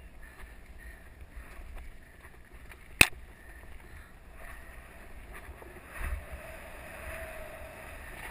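Mountain bike riding down a dirt singletrack: a steady rumble of tyres on dirt and rattling bike parts, with wind on the microphone. A sharp clack about three seconds in and a low thump near six seconds from the bike hitting bumps.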